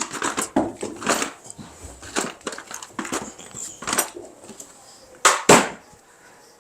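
Irregular clicks, knocks and scrapes of hand work with tools and parts, with two louder scraping rushes about five seconds in.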